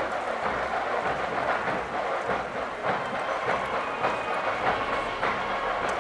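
Steady, dense noise of a large crowd, many people moving and talking at once, with faint scattered clicks.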